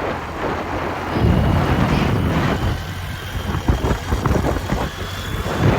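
A motor vehicle's engine running with road rumble, swelling louder about a second in and easing off again.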